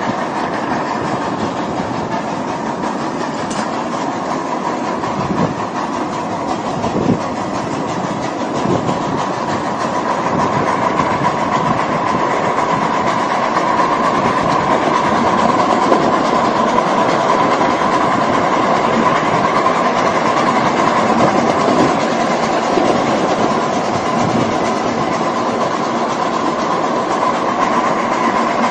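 Ride-on live steam train, an Atlantic 4-4-2 locomotive with riding cars, running along its track: steady rolling noise of wheels on rail with a thin steady tone over it, growing louder about a third of the way in.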